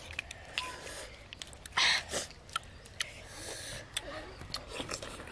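Eating sounds: scattered clicks of clam shells and mouth noises as cooked clams are eaten from coconut-shell bowls. There is one short, loud breathy sound about two seconds in, with a smaller one just after.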